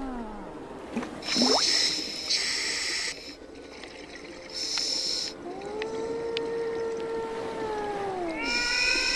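Whale song: long calls with several overtones that rise, hold steady and fall away, one fading just after the start and another running from about halfway to near the end, with a quick upward sweep about a second and a half in. Short bursts of hiss, each about a second long, come between the calls.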